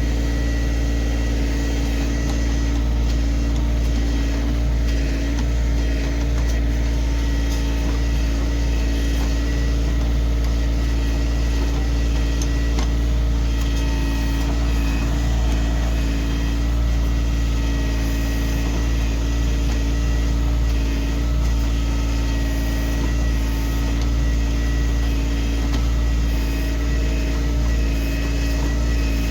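Kioti CK2610 compact tractor's three-cylinder diesel engine running steadily, with a few faint knocks.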